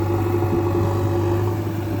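Steady engine idling with a constant low hum, easing slightly near the end.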